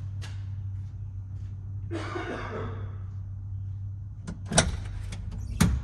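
Cab door of a 1994 Chevrolet W4 Tiltmaster truck being handled as someone climbs in: a scrape about two seconds in, then two sharp knocks about a second apart near the end. A steady low hum runs underneath.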